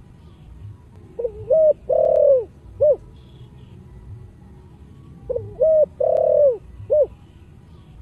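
Spotted dove (chim cu gáy) singing in the deep 'giọng thổ' voice: two cooing phrases about four seconds apart. Each phrase is two short coos, a long drawn-out coo and a short closing coo.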